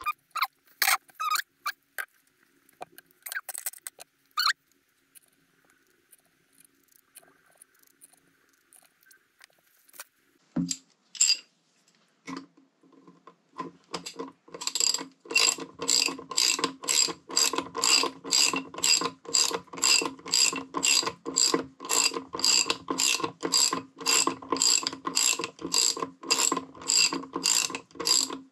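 A few scattered clicks and taps, then, from about twelve seconds in, a socket ratchet wrench clicking in a steady rhythm of about two to three clicks a second as it tightens a bolt on a motorcycle's front wheel hub.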